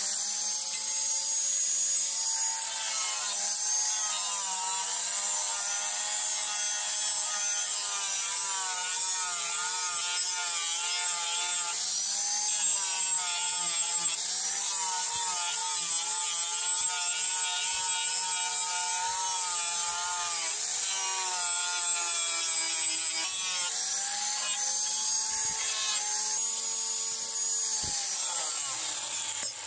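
Handheld electric angle grinder running continuously while grinding the steel head of an axe, its motor whine dipping in pitch again and again as the disc is pressed onto the metal, over a steady high hiss.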